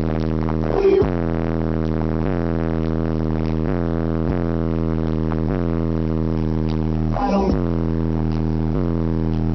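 Instrumental stretch of a hip-hop track played through a car stereo with two 15-inch DD 9515 subwoofers: a sustained, bass-heavy tone that steps to a new pitch about every second. Two short, louder hits come about a second in and again near seven seconds.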